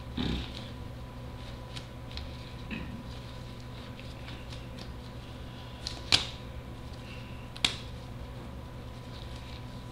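Steady low room hum with a few faint handling ticks, and two sharp clicks about six and seven and a half seconds in, the first the louder.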